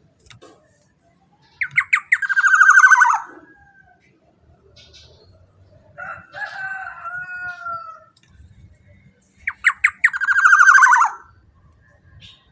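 Black-naped oriole (kepodang) calling: two loud calls, each a quick run of stuttering notes running into a drawn-out harsh note, with a softer gliding whistled phrase between them.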